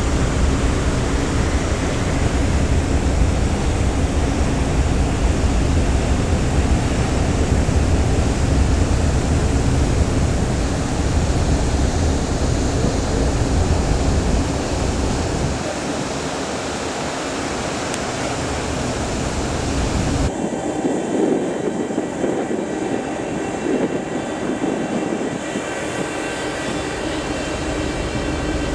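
Steady rumble and rushing noise of a ferry under way at sea. The deep rumble drops away about halfway through, and a few seconds later the sound thins, with faint steady tones higher up.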